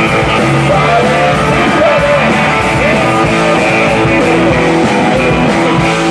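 Live rock band playing loudly: electric guitars with bending lead notes over a drum kit.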